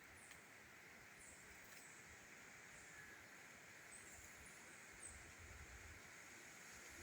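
Near silence: faint outdoor ambience, with short high chirps from small birds about once a second over a steady faint hiss.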